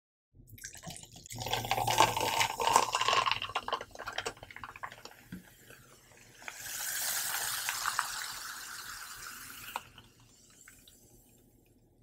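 Cola poured from a plastic bottle into a plastic tumbler, with the splashing stream loudest in the first few seconds. A steadier hiss follows for about three seconds in the second half.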